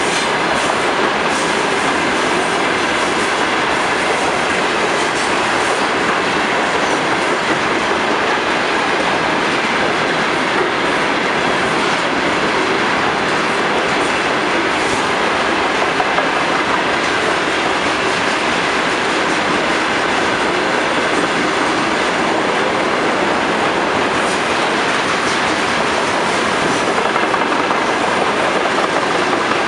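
Freight train of railway tank cars rolling past close by: loud, steady noise of steel wheels running on the rails.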